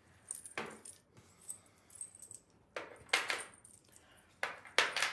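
Beads and small charms of a Kumihimo jewelry kit clinking and rattling as they are handled: a short clink about half a second in, a cluster around three seconds in, and more just before the end.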